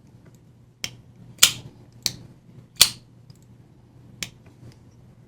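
A few sharp metallic clicks, about five over four seconds, from a folding knife and its small parts being handled during assembly, over a faint low hum.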